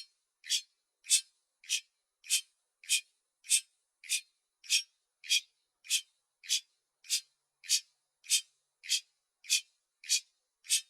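Clock ticking at an even pace, a little under two crisp ticks a second.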